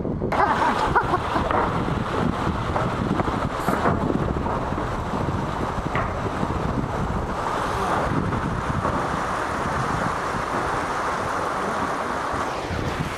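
Wind buffeting the microphone: a steady rushing noise that starts abruptly just after the beginning.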